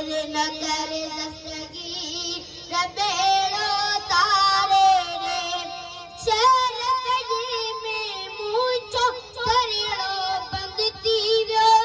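A boy singing a manqabat, a devotional praise song for a Sufi saint, into a microphone through a PA loudspeaker, with long held notes and ornamented, wavering pitch.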